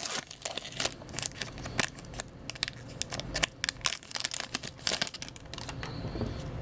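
A foil hockey card pack wrapper being torn open and crinkled, with the cards inside being handled: a run of irregular crisp crackles that thins out near the end.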